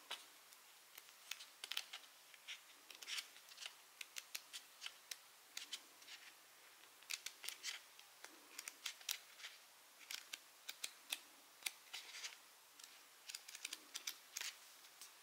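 Pages of a small paper booklet turned by hand: crisp paper flicks and rustles, many in quick runs with short pauses between.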